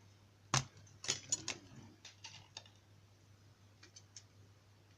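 Small metal lock parts clicking and ticking as the pin tumblers are taken out of the rim cylinder's plug and dropped into a pinning tray: one sharp click about half a second in, a quick cluster of clicks about a second in, then a few fainter ticks.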